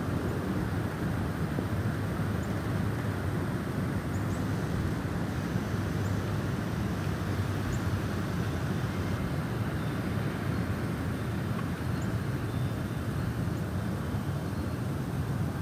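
Steady low rush of snowstorm wind, an unbroken deep roar with little hiss on top.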